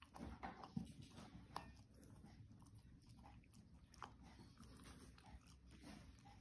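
Puppy eating raw chicken from a stainless steel bowl: faint chewing and biting with scattered short clicks.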